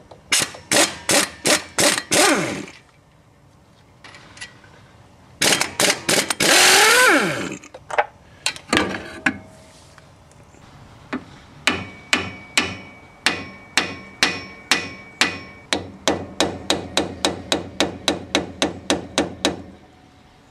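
Hammer blows on metal parts of an MGB's rear axle at the hub and brake backplate. First come quick bursts of strikes, some with a ringing that falls in pitch. Then a long, steady run of about three to four blows a second, speeding up near the end.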